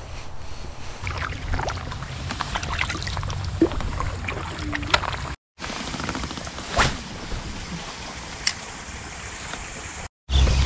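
Outdoor ambience from a kayak on a slow river: faint water movement around the hull, a low rumble of wind on the microphone, and a few light clicks and knocks of fishing gear being handled. The sound cuts out completely twice for a moment.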